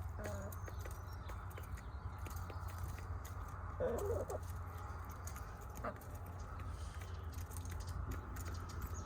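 Backyard hens clucking softly, with a short burst of clucks about four seconds in, over a steady low rumble.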